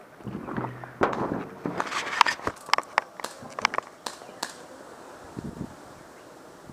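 Airsoft guns firing: an irregular string of sharp cracks, about ten over two and a half seconds, after a short stretch of voices.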